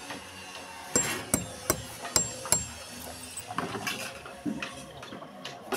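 Claw hammer driving nails into a concrete block wall: a quick run of about five sharp blows about a second in, then a few lighter taps later.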